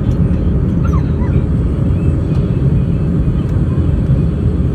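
Steady low rumble of cabin noise inside an Airbus A320 in flight, from the engines and air rushing past the fuselage. A few faint, brief high squeaks sound over it about a second in.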